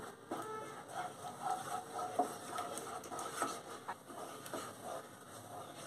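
Wooden spatula stirring a thick yogurt and spice masala in a non-stick frying pan, stirred continuously over a low flame: soft, irregular scraping with a few light taps against the pan.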